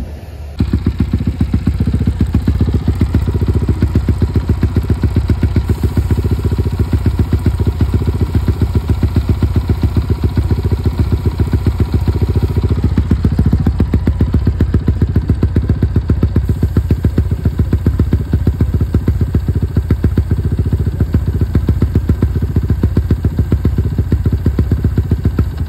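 A motorcycle engine running steadily at a constant speed, cutting in abruptly about half a second in.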